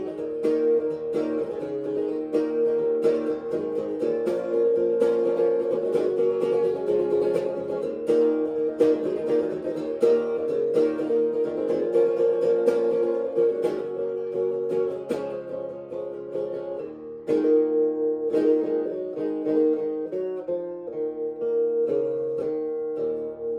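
Steel-string acoustic guitar strummed in a steady blues rhythm, instrumental with no singing; the strokes thin out and the chords fade near the end.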